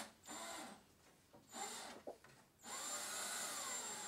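Cordless drill turning a screw in a plywood panel, running in three short bursts, the last and longest with its motor pitch rising and then falling.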